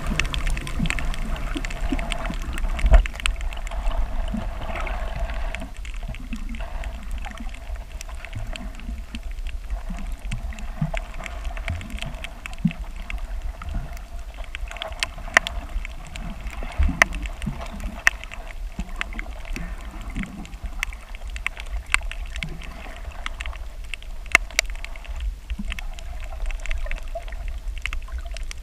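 Underwater ambience picked up by a submerged camera: a steady low rumble of moving water under a constant hum, with scattered sharp clicks and crackles throughout. The loudest click comes about three seconds in.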